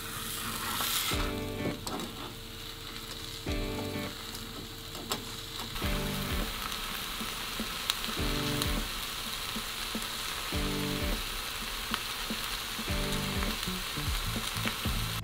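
Rolled egg omelette frying in oil in a rectangular tamagoyaki pan over a gas flame, with a steady sizzle.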